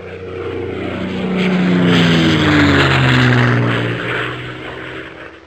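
Airplane flyby sound effect: an engine drone swells in, drops in pitch as it passes, and fades away.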